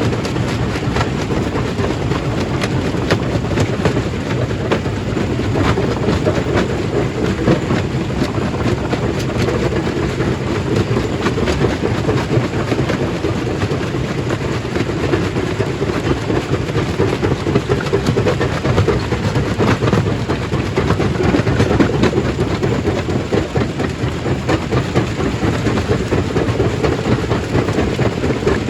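Stone crushing machine running, a loud steady rumble with a constant rattle and knocking of rock being crushed.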